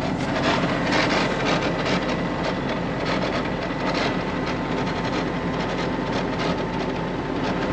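Farm tractor engine running steadily, with irregular clattering and rattling over it.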